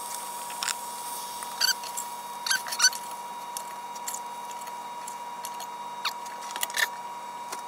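Metal tongs clicking and squeaking in short, sharp bursts against the plate and the cast iron skillet as a steak and onions are lifted across. A faint steady high tone hums underneath.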